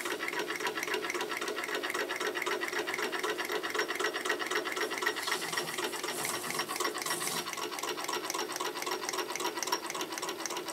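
Small homemade Stirling hot air engine with ball-bearing shafts running on an alcohol flame, its mechanism ticking over with a steady, rapid rhythm.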